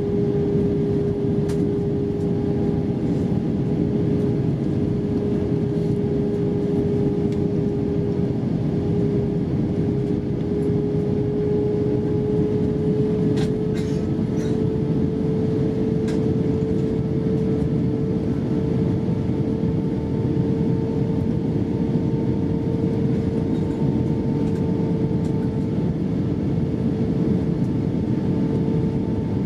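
Cabin noise inside an Airbus A320-232 airliner on its approach: a steady rush of airflow with the hum of its IAE V2500 turbofan engines, whose tone rises slowly and slightly in pitch.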